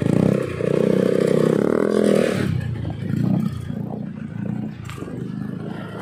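Yamaha NMAX scooter's single-cylinder four-stroke engine through a Yoshimura aftermarket exhaust, revving as the scooter pulls away. The engine note rises for about two seconds, then falls off and fades as it rides away.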